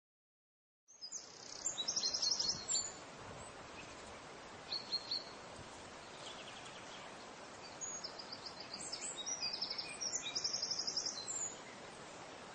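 Songbirds singing short, rapid trills in several bursts over a steady outdoor hiss, starting about a second in.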